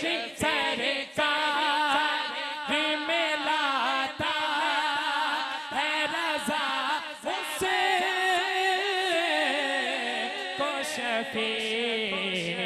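A man singing a naat without instruments, drawing out long ornamented notes with a wavering, gliding melody that sinks lower near the end.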